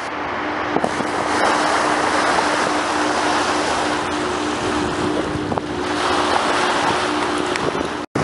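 Sea water rushing along the bow of a moving longliner, with wind buffeting the microphone and a steady hum underneath. The sound drops out for an instant near the end.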